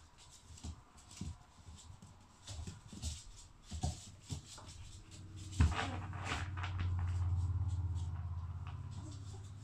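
Puppies scrabbling and padding about on a wooden floor, with scattered light knocks and taps. About halfway through comes one sharp knock, followed by a low, pulsing rumble that swells and slowly fades.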